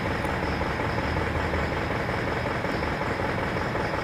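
Isuzu NPR diesel truck engine idling steadily. The engine knocks and throws fault code P0202, an injector circuit fault on cylinder 2.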